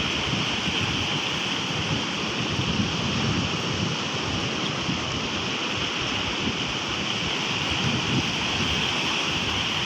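Steady rush of rough surf breaking, mixed with wind buffeting the microphone.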